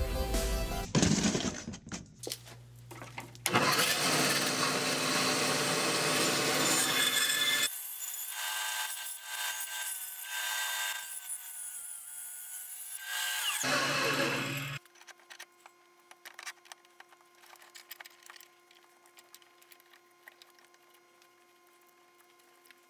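Wood being sawn in short cut-together clips, among them a bandsaw cutting through a rough, dry log. About fifteen seconds in the sawing stops, leaving only faint clicks and knocks.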